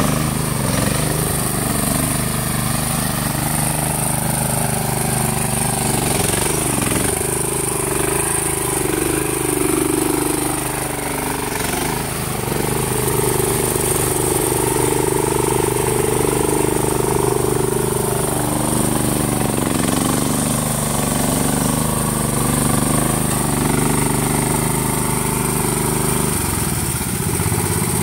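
Small lawn tractor engines running through mud, their pitch shifting up and down as the throttle changes.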